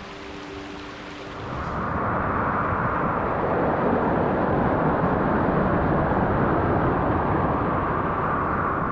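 Quiet background music over faint water noise, then about a second and a half in, the loud, steady rush of a mountain river running over rocks takes over.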